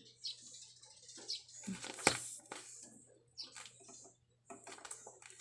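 Paper and tape crinkling and rustling as a paper squishy is handled, with irregular small crackles and a sharper tap about two seconds in.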